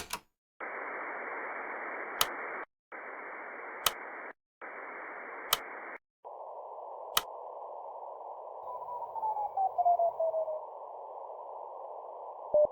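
Radio-receiver static hiss, first in three short stretches with brief gaps, then as a narrower, steadier hiss, with a sharp click about every second and a half. Partway through, a single tone glides down in pitch and settles, like a CW signal being tuned in. Just at the end, Morse code beeps begin at that pitch.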